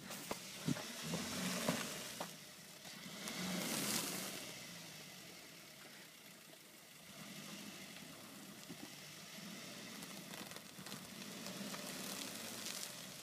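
Daihatsu Terios engine running at low revs as the 4x4 crawls slowly through tall grass, a quiet steady hum. A few sharp clicks and handling noise in the first seconds.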